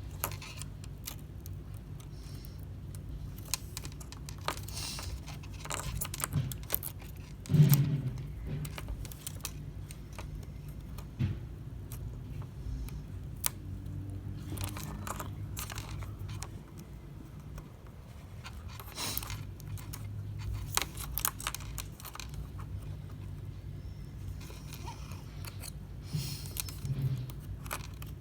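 Small metal tools clicking, tapping and scraping against an iPhone XR's internal parts as components are pried up: scattered light clicks over a low steady hum, with one louder knock about eight seconds in.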